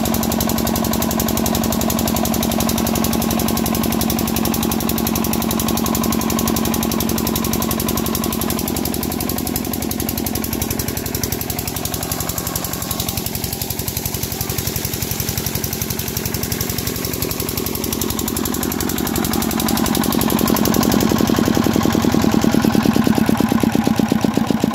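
Diesel engine running steadily with a fast, even knock, growing louder near the end.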